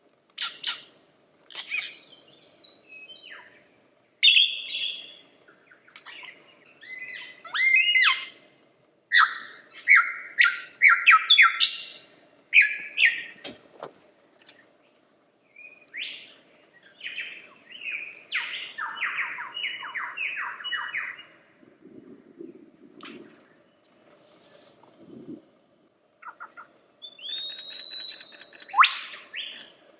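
Lyrebird singing a long, varied run of phrases: clear whistles, rapid trills and rattling notes, in bursts separated by short pauses.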